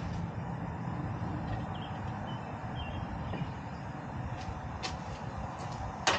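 Steady low outdoor rumble with a few light clicks, and one sharp knock just before the end.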